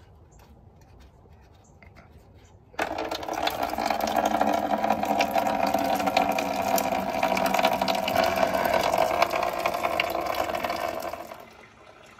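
Engine coolant gushing out of a pickup radiator's opened drain valve and splashing into a drain bucket. It starts suddenly about three seconds in, after a few faint clicks of the valve being turned, and dies away near the end.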